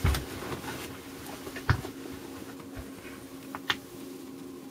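A steady faint hum with a few knocks and clicks of handling on a bench: a low thump at the start, a sharper knock about a second and a half in, and a lighter click nearer the end.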